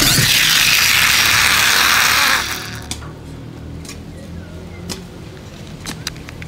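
Small plastic toy monster truck's drive gears whirring loudly as it is pushed along a wooden table, stopping about two and a half seconds in; then a few light clicks as the toy is handled.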